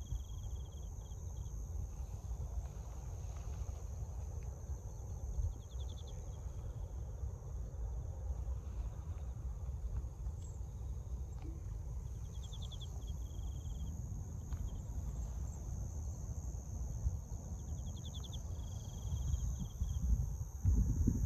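Insects singing, crickets among them: a steady high trill, with a second call repeating about every six seconds, a quick run of pulses followed by a short held note. A low rumble runs underneath.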